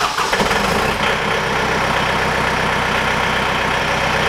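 John Deere compact tractor's diesel engine idling just after starting, settling into a steady idle about a second in.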